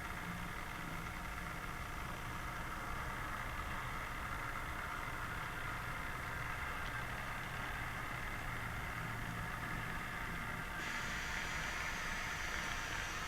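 Model train running on the layout: a steady motor and wheel hum under a hiss. The sound turns brighter and hissier abruptly about eleven seconds in.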